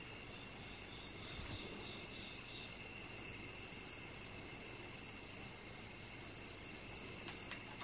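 Steady, faint, high-pitched chorus of night insects such as crickets. There is a short run of regular chirps in the first few seconds and two faint clicks near the end.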